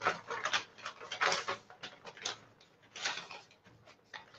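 Stiff brown pattern paper rustling and crinkling as the sheets are lifted, folded over and smoothed down by hand, in irregular bursts.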